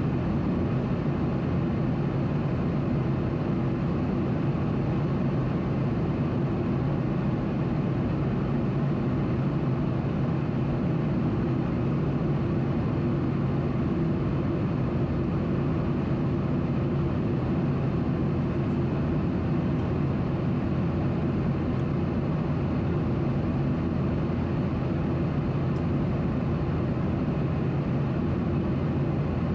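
Steady cabin noise in a Boeing 737-800 airliner, its CFM56-7B engines and airflow making a constant low, even rumble with no change in pitch or level.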